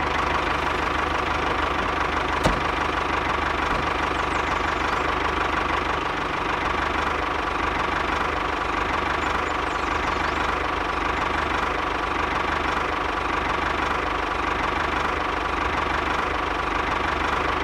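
Small diesel engine of a miniature two-wheel tractor running steadily at an even speed, with a fast, regular beat.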